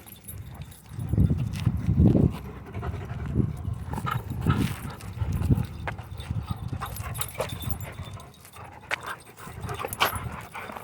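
A dog panting hard close by during a game of tug, with scuffing and sharp clicks.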